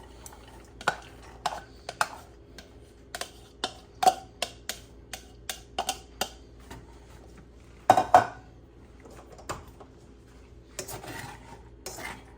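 Kitchen clatter as diced vegetables are tipped into a frying pan: a string of irregular clicks and knocks of utensils and dishes against the pan, loudest about eight seconds in.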